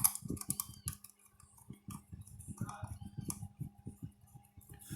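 Small irregular clicks and taps of a screwdriver driving a small screw into the metal heatsink of a car CD player's output IC, over a faint steady electrical hum.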